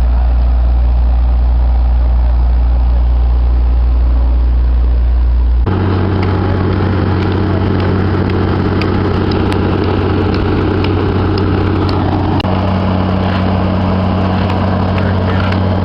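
Diesel engines of a Volvo asphalt paver and the dump truck feeding it running steadily at a constant pitch. The engine sound changes abruptly about six seconds in, with faint clicks and rattles over it after that.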